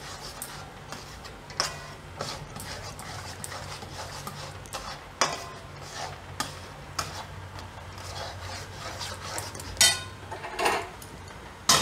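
A metal spoon stirring and scraping a thick milk and milk-powder mixture in a metal kadai, with scattered clinks of the spoon against the pan, the sharpest near the end. A low steady hum lies underneath.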